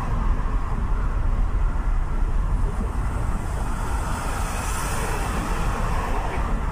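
Steady road and engine noise inside a moving vehicle's cabin while it drives along a highway.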